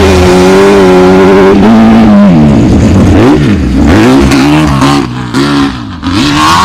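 Race car engine running at steady high revs, then revved up and down several times, its pitch dropping and climbing sharply in the second half.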